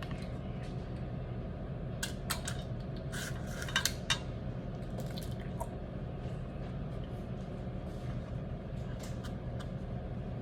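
Cornbread batter being scooped from a bowl into a pan: a measuring cup clinks and knocks against the dishes a few times, mostly a couple of seconds in, with wet batter dropping, over a steady low hum.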